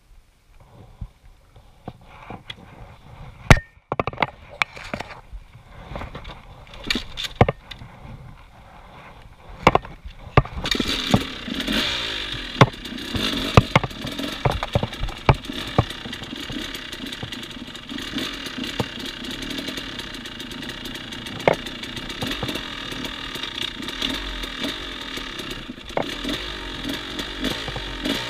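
Scattered knocks and clicks, then about a third of the way in an enduro dirt bike's engine comes in suddenly and runs steadily as the bike rides over a rough dirt trail, with more knocks and clatter over it.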